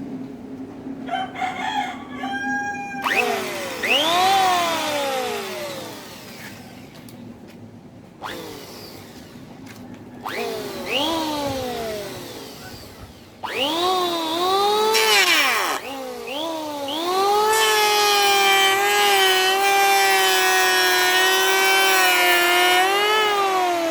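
Mailtank SH194 780 W electric hand planer's motor switched on and off several times: its whine rises quickly as it spins up, then sinks slowly as the cutter head coasts down. Near the end it runs steadily for several seconds with small dips in pitch.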